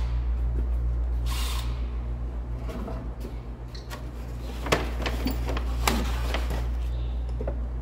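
Steady low machine hum with a faint even pulse, with a short hiss about a second and a half in and two sharp knocks near the middle.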